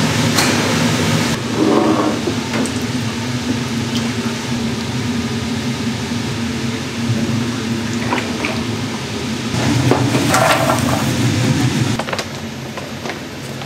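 Busy commercial kitchen noise: a steady machine hum under a wash of noise, with a few short clinks and knocks.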